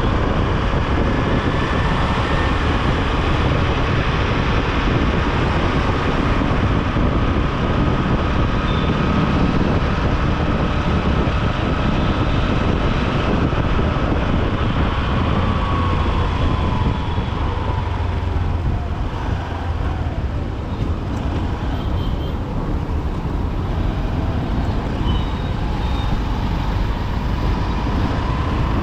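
Honda SP125's single-cylinder four-stroke engine running under way in heavy city traffic, with the road noise of the vehicles around it. The ride eases off about halfway through and picks up again near the end.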